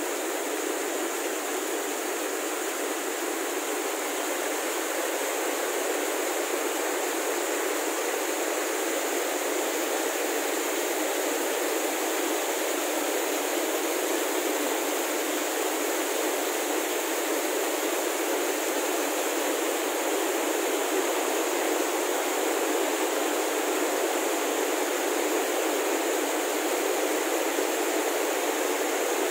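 Rushing water of a rocky mountain stream cascading over boulders, a steady unbroken rush.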